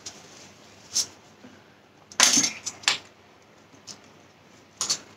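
Eating sounds: a few sharp clicks and clinks of cutlery against disposable food containers, with a louder, short scraping burst about two seconds in.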